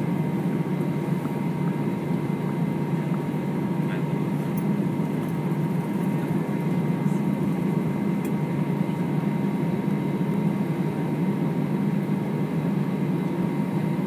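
Steady low cabin drone inside an Airbus A320 on the ground after landing, with a faint steady whine above it and a few faint ticks.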